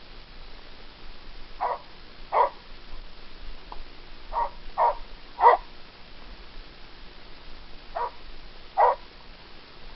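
A dog barking: seven short barks in three bunches, two early on, then three a couple of seconds later, then two near the end.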